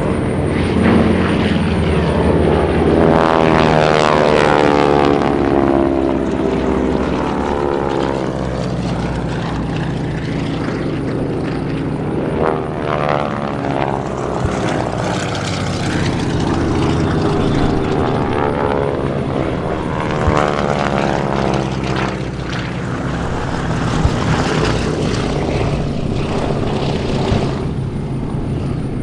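Radial piston engines of T-6 Texan and BT-13 Valiant warbirds making several low passes, the propeller drone swelling and falling away as each aircraft goes by. A few short sharp cracks sound over the engine noise.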